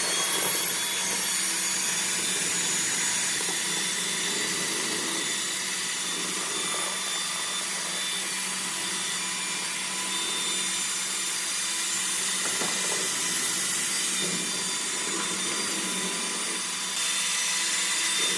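Handheld electric paddle mixer running steadily, its paddle churning cement and water into a slurry in a metal bucket.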